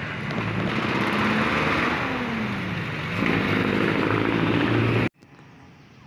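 Road traffic: engines of passing cars and motorcycles, with one engine's pitch falling and then rising about two to three seconds in. About five seconds in, the sound cuts off abruptly to a much quieter faint background.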